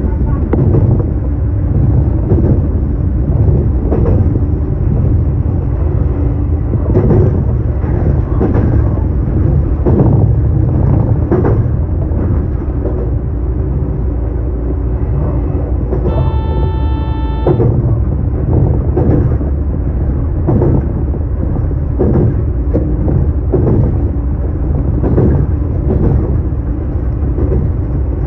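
JR Kyushu BEC819-series battery-electric train running along the track, heard from inside the car as a steady low rumble with irregular knocks from the wheels on the rails. About midway, a steady high tone sounds for about a second and a half.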